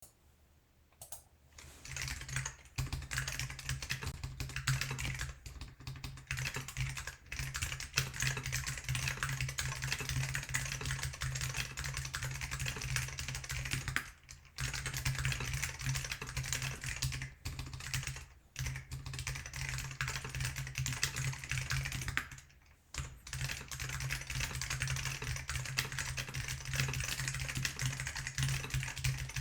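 Fast, continuous typing on a GeonWorks F1-8X mechanical keyboard with lubed Alps SKCM salmon switches on a carbon-fibre plate and IBM 5140 keycaps. It is a dense run of keystroke clicks that starts about two seconds in and breaks off briefly about 14, 18 and 23 seconds in.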